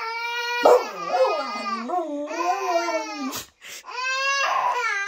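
A dog howling in long, wavering notes, with a baby's voice sounding along with it in places. The howling breaks off briefly about three and a half seconds in, then starts again.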